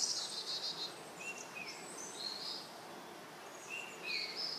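Small birds chirping: short high calls repeating about once a second, with a brief trill at the start, over faint steady background noise.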